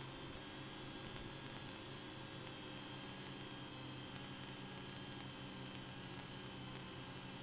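A small quadcopter's four electric motors and propellers hum steadily in flight, picked up by its own onboard camera microphone. It is a thin, even drone with a low hum and several higher whining tones held at a constant pitch.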